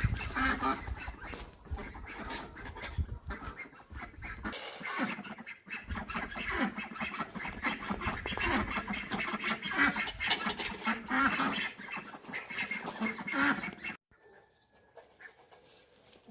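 Farmyard poultry calling over one another, a busy mix of calls that cuts off abruptly near the end.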